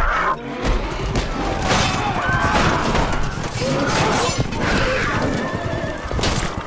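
Film battle-charge soundtrack: horses neighing over the dense, heavy din of a charging army of riders and creatures.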